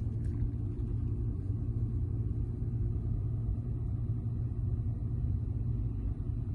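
Steady low road-and-engine rumble heard from inside a slowly moving car.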